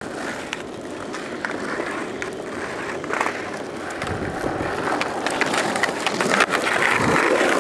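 Skateboard wheels rolling over rough asphalt, a steady gritty rumble with scattered sharp clicks and clacks from the board, getting louder about halfway through.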